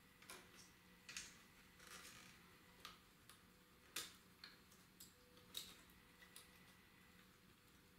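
Faint scattered clicks and light plastic knocks, about one or two a second, from handling the Marantz DD92 DCC recorder's tape mechanism as it is lifted out and its cable connectors are worked loose.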